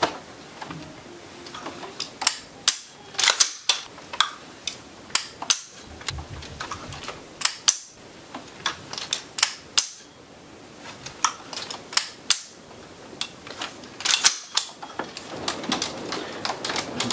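Sharp metallic clicks and clacks of an unloaded AR-15 rifle being worked through repeated dry-fire reps: the safety selector flicked off and the trigger pulled so the hammer snaps on an empty chamber, with handling of the rifle in between. The clicks come in irregular clusters every second or so.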